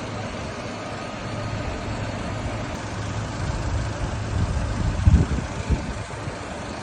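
A vehicle engine running steadily, with a louder low rumble about four and a half to six seconds in.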